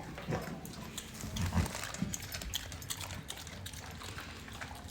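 Light rain, with many small drops ticking close by, and a few soft low thuds, the strongest about a second and a half in.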